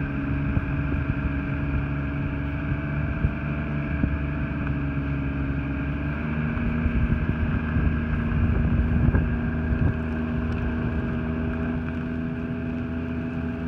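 Snowmobile engine running steadily under way, heard from the rider's seat. Its pitch drops a little about six seconds in as the machine eases off.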